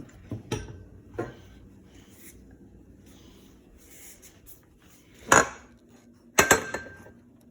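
Hard clinks and knocks of a ceiling fan light kit being handled and set down: a few light taps early on, then two loud clanks with a short ring about five and six and a half seconds in.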